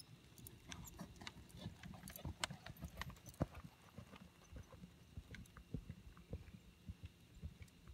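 A horse's hooves striking the sand of an arena at a lope, a steady run of soft thuds with some sharper clicks in the first few seconds.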